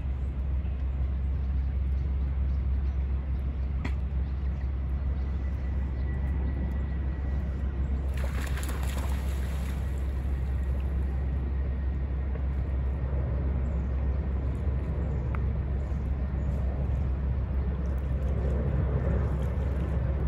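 A water bird splashing across a pond's surface for about two seconds, some eight seconds in, over a steady low rumble.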